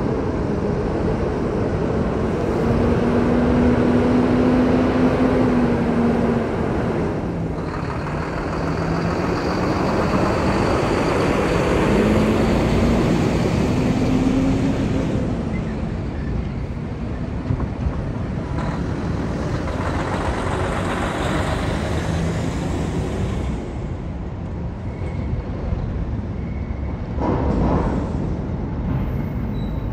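Heavy diesel trucks driving off a car ferry down the vehicle ramp one after another. The engine note rises twice as trucks pull away, over steady engine and tyre noise. A brief burst of noise comes near the end.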